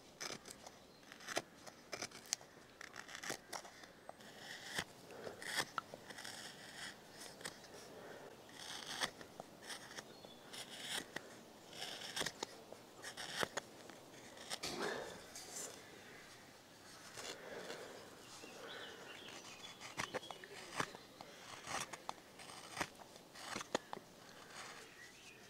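Knife cutting thin shavings from the inside of a carved wooden kuksa bowl: a run of short, irregular cutting and scraping strokes with small clicks.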